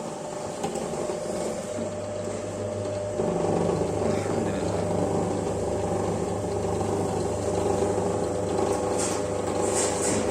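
Electric motor of a dodol cutting machine running with a steady hum, growing louder about three seconds in, with a few short high clatters near the end.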